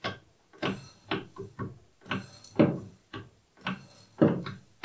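Slotting tool in the quill of an Optimum MB4 milling machine, hand-stroked like a shaper, scraping through cast aluminium on each stroke to cut an internal keyway in fine 0.05 mm passes. Three strokes, about one every second and a half, each a pair of scraping clicks.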